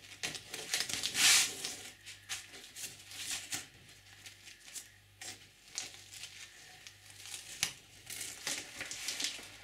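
Masking tape peeled off a wooden strip-built panel whose strips were glued with epoxy the day before: short, irregular ripping and crinkling rasps, the loudest about a second in.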